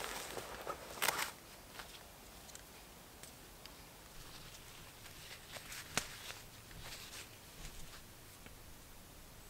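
Footsteps and rustling on the forest floor in the first second or so, then faint rustling of clothing and a headlamp's strap, with one sharp click about six seconds in.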